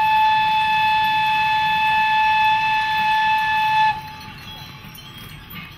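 Small narrow-gauge steam locomotive's whistle: one long steady blast at a constant pitch that cuts off suddenly about four seconds in, dipping slightly in pitch as it stops.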